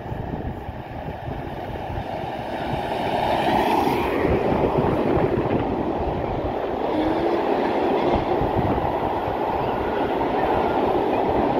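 LMS Black 5 steam locomotive No. 44871 passing close beneath, followed by its train of coaches rolling by on the rails. The sound swells about three to four seconds in and stays loud as the coaches pass.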